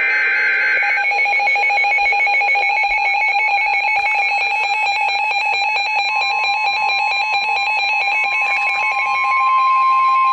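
Emergency alert signalling: the end of an EAS data header squawk at the start, then a rapid pulsing electronic alarm beep. About six seconds in, the steady single-pitch NOAA Weather Radio warning alarm tone joins and grows loudest, signalling the severe thunderstorm warning that follows.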